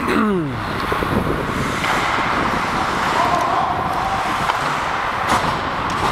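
Steady noise of ice hockey play heard from a skating referee's helmet camera: skate blades on the ice and air rushing past the microphone. A short falling sound comes at the very start, and a sharp knock about five seconds in.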